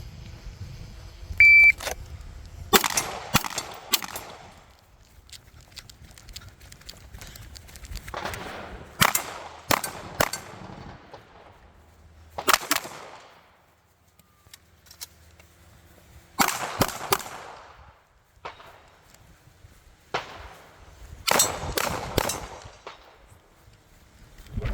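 A short electronic beep, then gunshots fired in quick strings of several shots, five strings in all, each shot followed by a brief echo.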